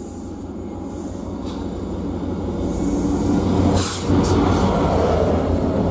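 Class 67 diesel-electric locomotive, with its two-stroke V12 diesel, approaching and passing close. Engine drone and wheel-on-rail noise grow steadily louder and are loudest as it goes by over the last two seconds.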